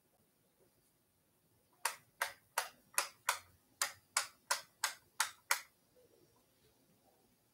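A run of about eleven sharp clicks or taps, roughly three a second, with a short gap midway.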